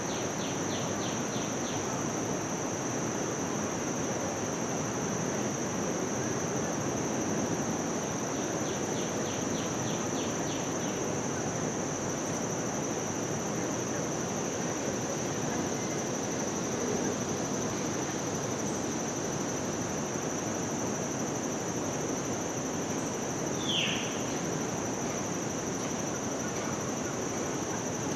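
Outdoor ambience with a steady high insect drone and a low background hum. Short runs of rapid, evenly spaced chirps come near the start and again about ten seconds in, and a single downward-sliding bird call sounds about 24 seconds in.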